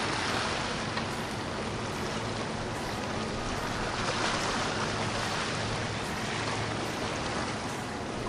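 A motorboat going by: a steady engine hum under the continuous rush and splash of water along the hull and its wake.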